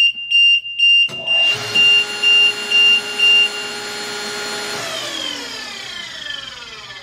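HySecurity SlideDriver 15 hydraulic gate operator running a close cycle: the controller's warning buzzer beeps about two and a half times a second while, about a second in, the AC motor of the hydraulic pump starts and runs steadily. The buzzer stops partway through, and after a few seconds of running the motor is switched off and spins down with falling pitch.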